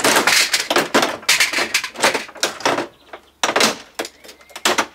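Plastic scanner lid and hinge of an Epson all-in-one printer being wrenched back and forth by hand: a quick run of loud cracks, creaks and snaps of stressed and breaking plastic, with a short pause a little past the middle.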